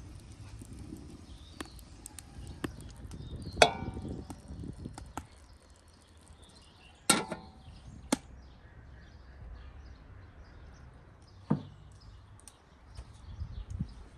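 Cooking utensils knocking and clinking: a few separate sharp knocks. Those about three and a half and seven seconds in are the loudest and carry a short metallic ring.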